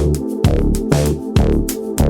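Electronic background music with a steady drum-machine beat and bass.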